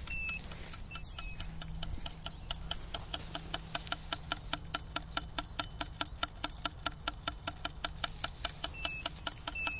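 Spinning reel's clicker ticking rapidly and evenly as line is pulled off the spool. The ticking grows more distinct a few seconds in.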